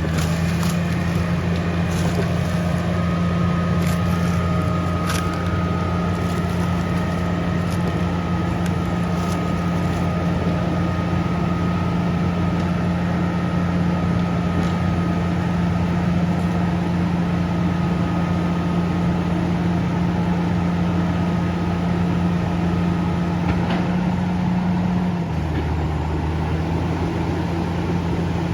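Diesel engine of a Komatsu D68ESS crawler bulldozer held at high revs under load, with a steady whine above it and a few knocks in the first seconds. About 25 seconds in, the revs drop slightly.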